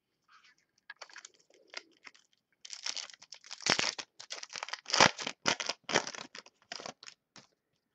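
Foil wrapper of a 2012 Topps Platinum football card pack crinkling and being torn open, heard as a run of irregular crackles with a few sharper snaps. The crackling grows dense about three seconds in.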